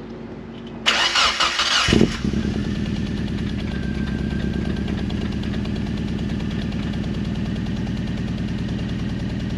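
Mazda Miata's inline four-cylinder engine cold-started: the starter cranks for about a second, then the engine catches and settles into a steady idle. It is running on freshly fitted NGK iridium spark plugs, put in to cure a misfire.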